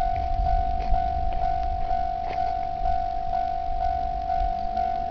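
Japanese railway level-crossing warning bell ringing: an electronic clang repeating about twice a second over a steady tone, the signal that the crossing is active for an approaching train. A low rumble runs underneath.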